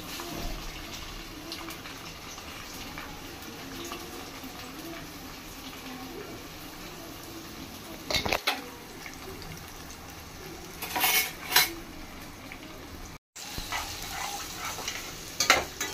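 Chopped onion and green chillies frying in oil in a stainless steel kadai, a steady sizzle. A metal spatula stirs them, clinking and scraping against the pan a few times, loudest about eleven seconds in.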